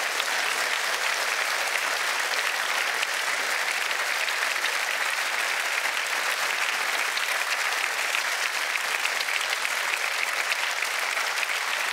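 Studio audience applauding, many hands clapping at a steady level.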